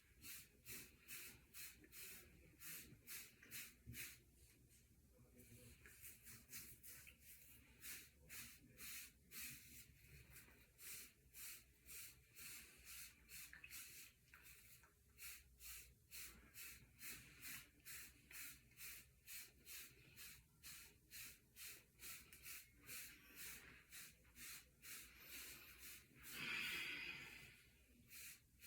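A hair brush stroking repeatedly through short hair for waves, faint, quick swishes at about two or three a second. Near the end comes one longer, louder rush of noise.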